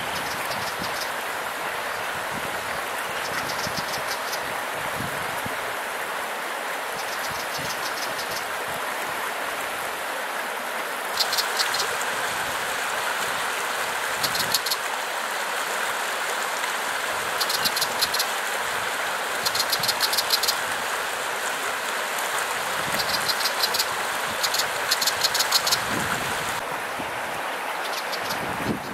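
Steady rush of a creek running high after heavy rain. Short, high-pitched rapid chirring calls, each about a second long, break in every few seconds and come more often in the second half.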